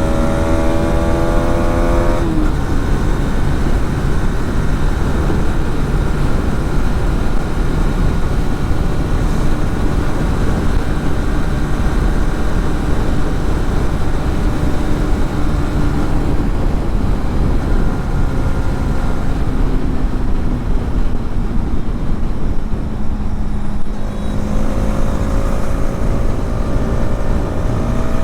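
Hero Xtreme 250R's single-cylinder engine riding under way: it revs up, breaks off for a gear change about two seconds in, then cruises steadily with its pitch slowly sinking, and climbs again near the end. A heavy rumble of wind on the helmet or bike-mounted microphone runs underneath.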